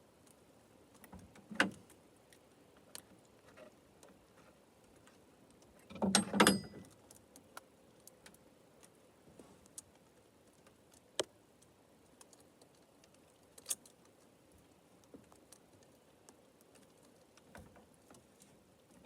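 Scattered light metallic clicks and clinks of a saw chain being fitted onto a chainsaw bar, with a louder short rattle about six seconds in.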